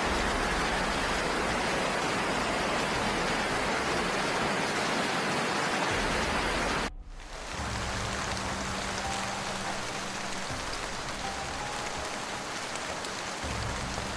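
Heavy rain falling, a steady hiss. It cuts off abruptly about seven seconds in and comes back slightly quieter, with a faint low hum underneath.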